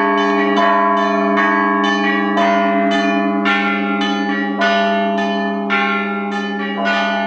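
Russian Orthodox church bells being rung: smaller bells struck in a quick pattern, about two or three strikes a second, over the steady hum of a larger bell.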